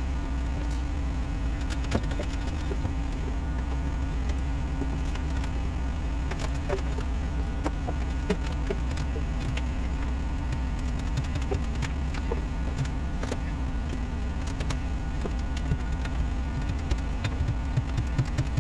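Long-handled ice scraper prying and scraping bark off a hemlock log: scattered small clicks and scrapes, coming thicker near the end, over a steady low hum.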